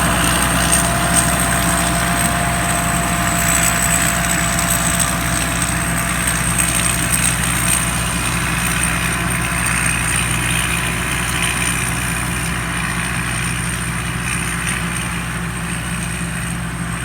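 Combine harvester's diesel engine running steadily, with a thin high whine above it, growing slightly quieter over the stretch.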